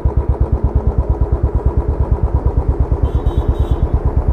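Royal Enfield motorcycle engine idling through an aftermarket silencer, a steady run of rapid, even exhaust pulses. A short high chirp sounds about three seconds in.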